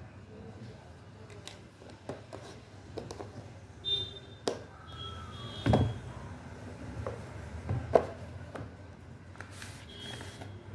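Hands handling a credit card and its box and paper leaflet: irregular taps, clicks and rustles, with two louder knocks, one about halfway through and one about three quarters in.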